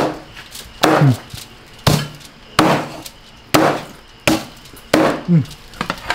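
Knife chopping down hard onto a wooden cutting board through crisp roast pig skin and meat, about eight sharp chops a little under a second apart.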